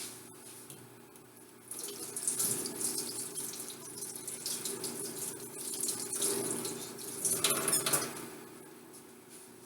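Kitchen tap running into a sink, the water splashing unevenly. It starts about two seconds in and tails off near the end.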